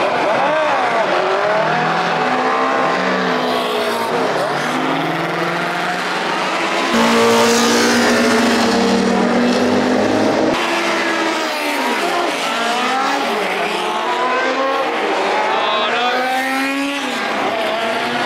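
Historic racing cars' engines at full throttle, accelerating and passing one after another, their pitch rising through the gears and dropping as each car goes by. The sound changes abruptly several times as one clip gives way to the next.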